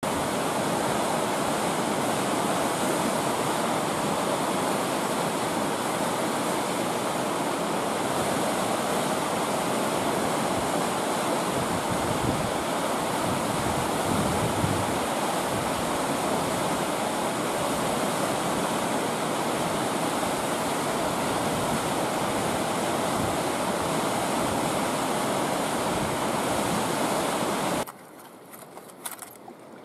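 A river running fast over rapids, a steady, full rushing of whitewater. Near the end it cuts off to a quiet background with a few small clicks.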